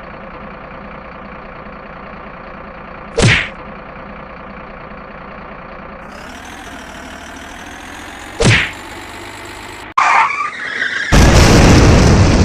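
Vehicle engine running steadily, broken twice by a short, loud, sharp sound. Near the end there is a loud burst of noise.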